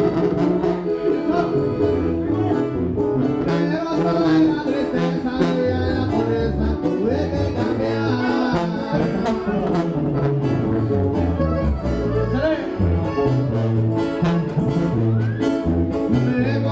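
Live Mexican regional band music played through the stage sound system: a sousaphone carrying the bass line under guitars, with singing.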